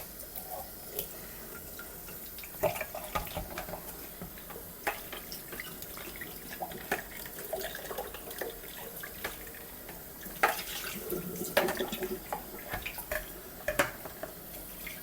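Kitchen tap running steadily into a sink as a detached Shark stick-vacuum part is rinsed under it, with scattered knocks and clatters of the part against the sink.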